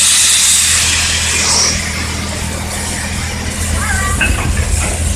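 Steam locomotive No. 461 hissing steam loudly, the hiss dying away after about two seconds, over a steady low hum.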